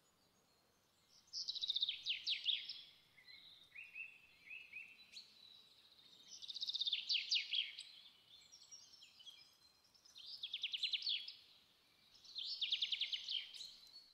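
A small songbird singing: four phrases of rapid repeated trilled notes, a few seconds apart, with softer chirps in between.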